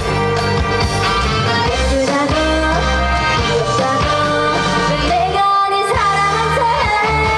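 Trot song sung live by a female singer with instrumental accompaniment.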